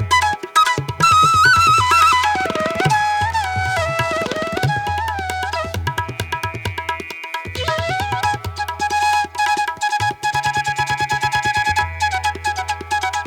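Background music: a flute-like melody that bends and glides in pitch over tabla-style hand drums and a steady low drone.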